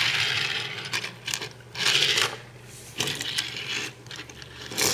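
Small die-cast toy vehicles and their plastic packaging being handled and set down on a surface: rattling, scraping and clicking in several uneven bursts, with a sharp click about three seconds in and another near the end.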